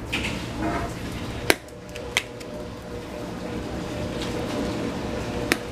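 Spice containers handled while seasoning ribs in a steel bowl: three sharp clicks, about a second and a half in, just after two seconds, and near the end.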